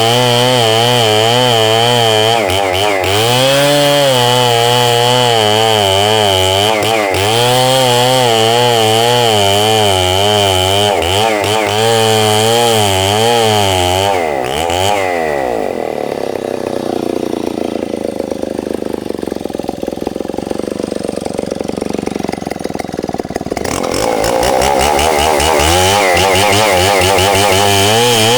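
Stihl 070 two-stroke chainsaw cutting red meranti wood at high revs, its pitch wavering up and down as the chain loads in the cut. About halfway through the pitch falls and it drops to a low idle for some eight seconds, then revs back up near the end.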